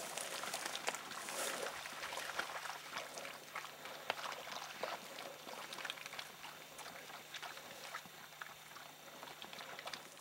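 Bird dogs in a pond: a dog swimming and splashing, with small irregular splashes and sloshing water.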